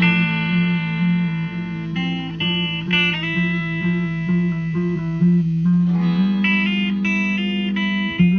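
Instrumental guitar music: sustained guitar notes over a steady low note, with the melody changing every second or so.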